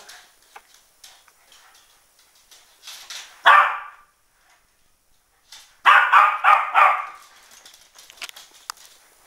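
West Highland white terrier barking: one sharp bark about three and a half seconds in, then a quick run of about four barks a couple of seconds later.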